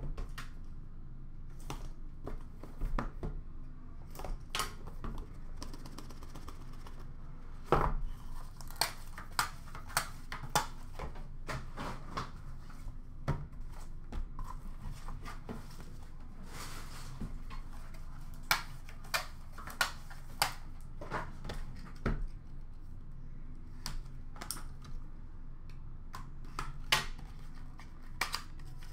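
A hockey card box and its packaging being handled and opened by hand: irregular clicks, taps, knocks and rustles, the loudest knock about eight seconds in, over a steady low hum.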